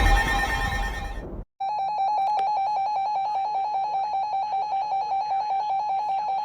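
Weather radio alarm: a wavering siren tone cuts off about a second and a half in, and after a short gap a steady beeping tone pulses rapidly and continuously.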